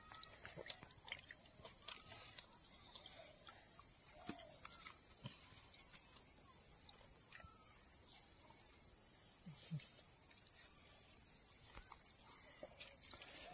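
Faint outdoor ambience: a steady high-pitched insect drone, with scattered faint bird chirps and a few small clicks and taps.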